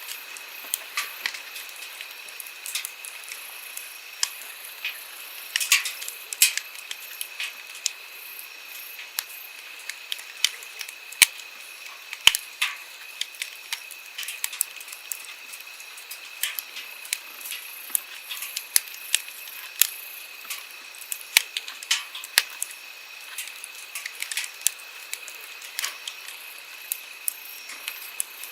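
Wood campfire crackling, with irregular sharp pops and snaps, several a second and some louder than others, over the steady rush of a flowing stream.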